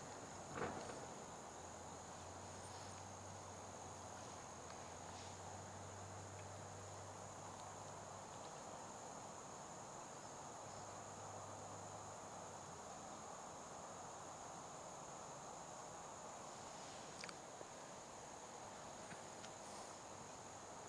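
Steady high-pitched insect chorus over a faint even background hiss. A faint low hum runs through roughly the first half, with a single click about half a second in.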